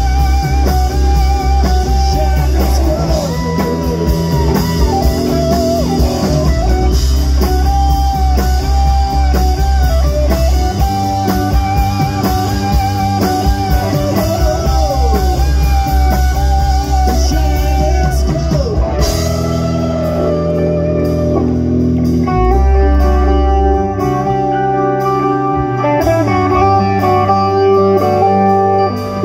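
Live blues-rock band playing, with electric guitars, bass and drums, and a lead line full of bending notes. About two-thirds of the way through the sound thins out, leaving held notes.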